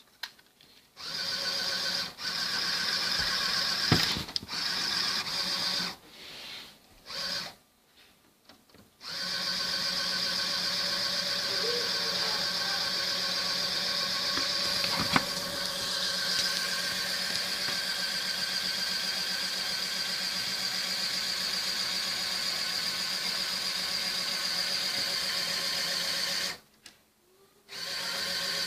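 Small electric motor driving a Lego aircraft-carrier catapult, run with no load as a dry test. It gives a steady whine that starts and stops several times, with one long run in the middle. A couple of sharp clicks come from the mechanism.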